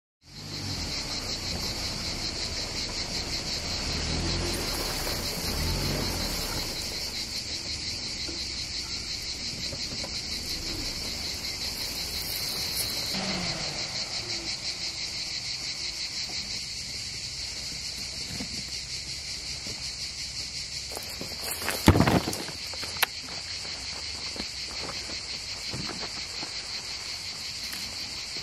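A steady, high-pitched chorus of insects chirring in a fast, even pulse. About two-thirds of the way through comes a loud thump, then a short click a second later.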